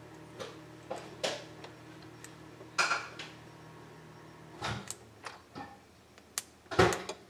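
Small plastic clicks and taps from handling an opened car key fob and its coin-cell battery, about a dozen short irregular clicks with a brief scrape about three seconds in and the loudest click near the end.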